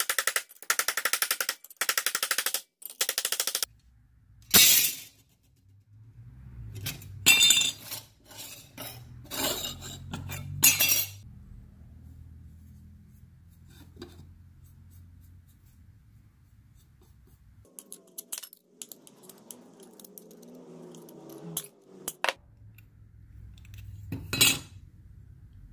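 A hammer rapidly striking a copper sheet clamped in a steel bench vise, a fast run of strikes in bursts that stops about four seconds in. Scattered sharp metallic clinks follow. Later, tin snips cut through thin copper sheet, with one more clink near the end.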